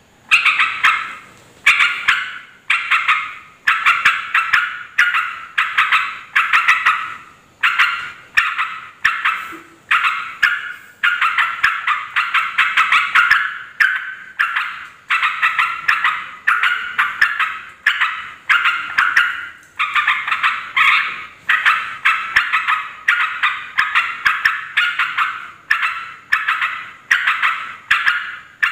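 Yellow-vented bulbul (trucuk) giving loud, noisy chattering calls in repeated bursts about once a second. This is the agitated 'ribut' calling used as a lure to provoke other bulbuls into answering.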